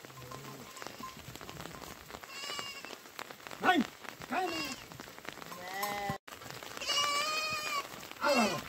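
Sheep and goats bleating, about six calls starting about two seconds in, several falling in pitch and one longer held bleat near the end, over steady rain.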